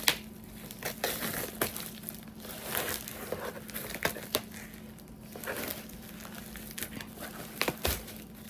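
Packaging crinkling and rustling as a parcel is unwrapped by hand, with scattered sharp clicks and crackles, over a faint steady hum.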